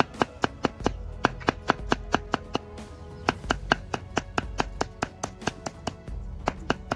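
Banana stem being chopped with a knife, quick sharp strokes at about four a second with a brief pause near the middle, over background music.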